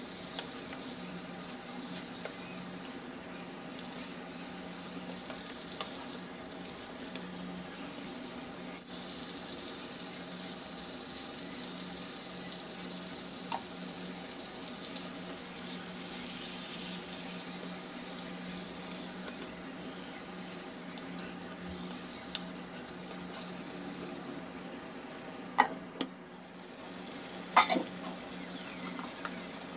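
Chicken pieces in a spiced masala sizzling as they fry in a pan, stirred now and then with a wooden spatula, over a steady low hum. Two sharp knocks near the end.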